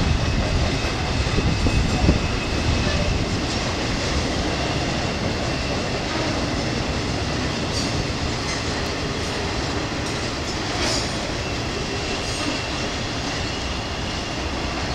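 Intermodal freight train's well cars, loaded with containers and highway trailers, rolling steadily past: a continuous rumble of wheels on rail.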